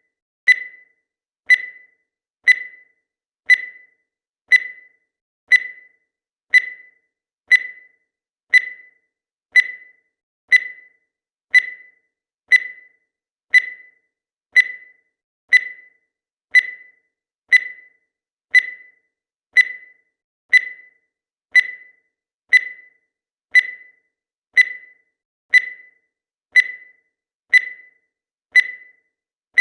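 Countdown timer's tick sound effect: a short, high, beep-like tick repeating once a second, evenly and steadily.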